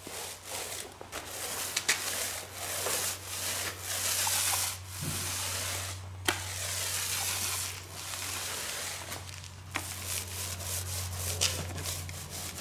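Paint roller on an extension pole rolling wet porch-and-floor enamel over concrete, a sticky hissing rub in repeated back-and-forth strokes with a few small clicks. A steady low hum runs underneath.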